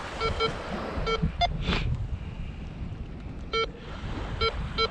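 Minelab GO-FIND 66 metal detector giving short, irregularly spaced beeps over a buried target, mostly at one pitch with one higher beep about a second and a half in. Wind is blowing on the microphone.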